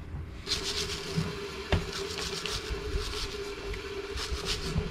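Wire brush scrubbing the gear head of a Makita angle grinder in quick, repeated strokes, scraping off dried sand and concrete, with a steady hum underneath.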